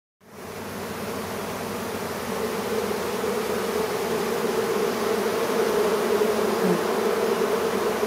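A colony of honeybees humming in a steady buzz over the open hive's frames, the bees freshly smoked and gorging on honey. The hum swells a little over the first couple of seconds, then holds steady.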